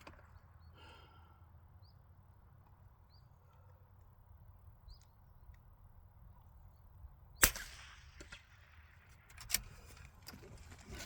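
A single .22 LR rifle shot cracks about seven seconds in, followed by a couple of quieter sharp clicks.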